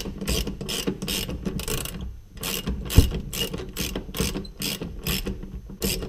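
Hand ratchet wrench clicking in short back-and-forth strokes, about two a second, as it backs out the seat belt's shoulder-strap anchor bolt. There is a short gap about two seconds in and a sharp knock about three seconds in.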